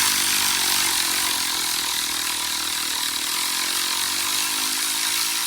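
Power tool running steadily, a loud even hiss with a motor whine underneath that drifts slightly in pitch.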